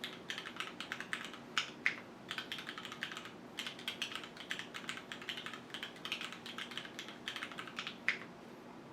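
Typing on a QwertyKeys Neo 65 gasket-mount mechanical keyboard with Cherry HyperGlide Black linear switches, an aluminium plate, no foam and JTK keycaps, picked up by a camera's built-in microphone. Fast runs of key clicks come with a few louder single strikes, and the typing stops a little after eight seconds.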